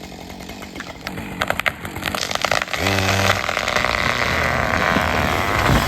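Felled tree going over: the hinge wood cracks and snaps in a run of sharp pops, then from about three seconds in comes a long rushing crash as the crown comes down through the branches. A Husqvarna 562 chainsaw idles underneath.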